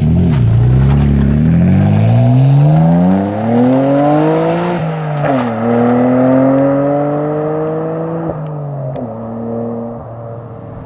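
1990 Nissan Skyline GT-R's 2.6-litre twin-turbo RB26DETT straight-six accelerating hard through a Blitz NÜR-Spec cat-back exhaust and test pipe. The pitch climbs for about five seconds, drops at a gear change, then climbs again more slowly. About eight seconds in the revs drop and the note settles lower, growing quieter toward the end.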